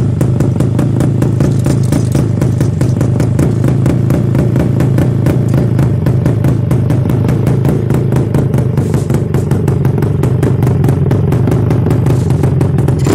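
Yamaha RX100 two-stroke single-cylinder engine running steadily at idle, heard right at the open exhaust tip with the dB killer removed. It is loud and crackly with rapid, even exhaust pulses.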